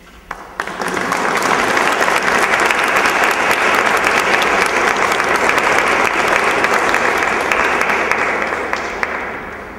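Audience applauding: a few scattered claps at first, swelling within a second into full, steady applause that tapers off near the end.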